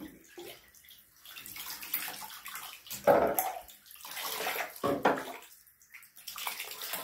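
Water poured from a cup splashing over a puppy standing in a bathtub as the shampoo is rinsed off, in several uneven pours, loudest about three seconds in and again about five seconds in.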